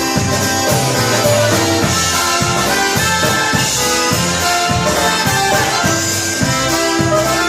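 Instrumental break in a Polish-language band song: brass playing over a steady beat.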